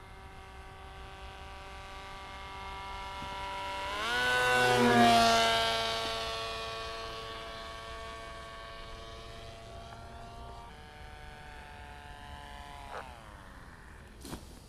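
Electric motor and 13x8 propeller of a foam RC jet model whining in flight: a steady pitched drone that rises in pitch and swells loudest as the plane passes close about five seconds in, then falls away. Near the end the motor is throttled down, its pitch dropping sharply, and a few knocks follow as the plane touches down in the grass.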